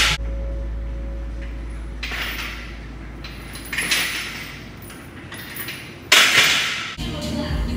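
Barbell bench press with chains hung from the sleeves: the chain links clink and rattle against the bar and floor as the bar is lowered and pressed. The rattle comes in a few noisy bursts, the loudest about six seconds in, over a low steady hum.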